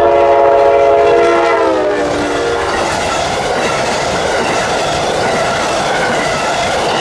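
Amtrak GE P42DC locomotive's air horn sounding a held chord that drops in pitch as the locomotive passes and stops about three seconds in. Then the Amfleet passenger cars roll by with steady wheel-on-rail noise.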